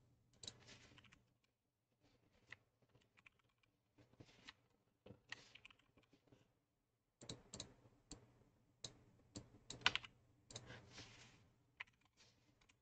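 Faint computer keyboard typing with a few mouse clicks: scattered keystrokes in short, irregular runs.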